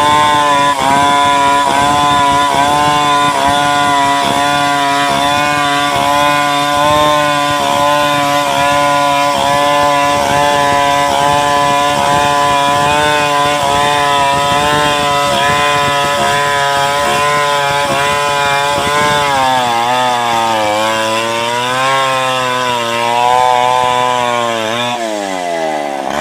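Chainsaw running at high speed, ripping a log lengthwise into planks, its engine note steady for most of the stretch. Late on the pitch dips and wavers under changing load, then falls away as the saw is let off and stops.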